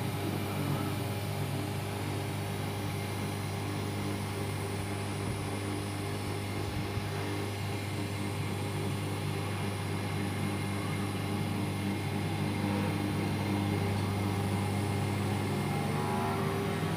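Refrigeration vacuum pump running steadily with a constant hum as it evacuates an air-conditioner's refrigerant lines through a manifold gauge set.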